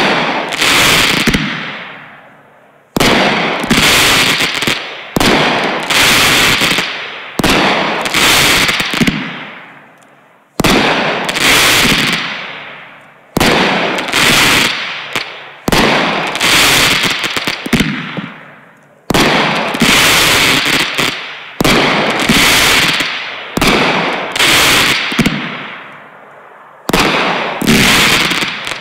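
A repeater firework cake, TNT Fireworks' Bruno, firing shot after shot, about one every one to two seconds. Each shot bursts with a loud bang and a crackling tail that fades before the next.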